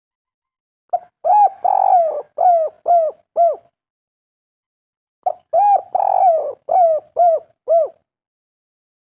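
Spotted dove (derkuku/tekukur) cooing its 'kuk 3' song. It gives two phrases, each a short opening note followed by a string of about five arching coos.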